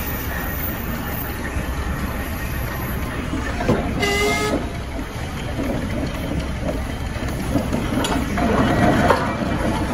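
The steam machinery of a 1920s Ruston Hornsby 90-ton steam face shovel running, a steady mechanical din. About four seconds in, a brief shrill tone sounds for under a second.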